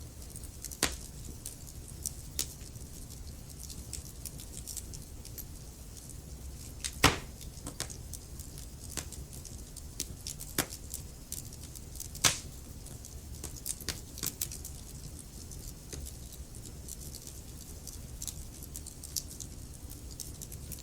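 Wood fire crackling in a fireplace: scattered sharp pops and snaps over a steady low rumble, with two louder pops about seven and twelve seconds in.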